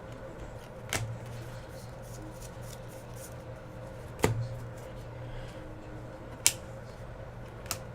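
Trading cards being handled: four sharp clicks and taps, spaced a second or more apart, as cards are flipped and set down, over a steady low hum.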